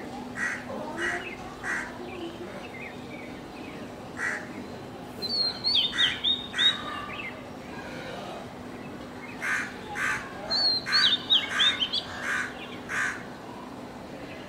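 Crows cawing in short runs of calls, joined twice by another bird's quick, high, falling chirps.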